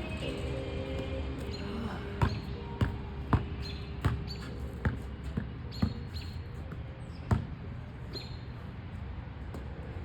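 A basketball bouncing on a hard court, about ten thuds at uneven intervals, over music playing in the background.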